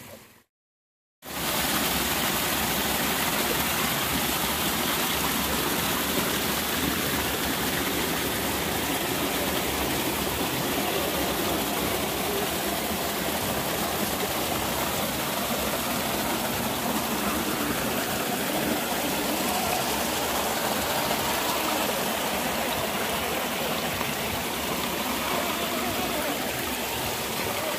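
Steady rush of flowing water, cutting out to silence for about a second just after the start.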